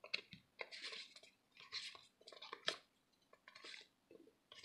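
Faint crinkling and rustling of a Yu-Gi-Oh booster pack's foil wrapper and its cards being handled, in short scattered rustles with a couple of sharper clicks.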